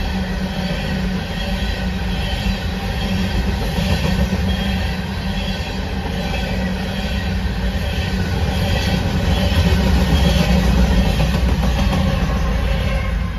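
Coal hopper cars of a freight train rolling past with repeated wheel clacks over the rail joints. Near the end, the rear distributed-power locomotive, a GE ET44AH, comes by with its diesel engine running, and the sound is loudest about ten seconds in.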